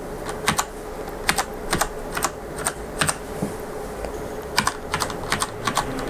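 Cherry MX Brown switches of a Cooler Master Quickfire Rapid-i mechanical keyboard clacking as single keys are pressed one at a time, about two a second and unevenly spaced, over a faint steady hum.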